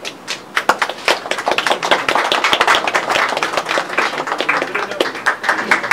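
A crowd applauding, starting about half a second in and quickly growing dense. Near the end the claps become more even and regular.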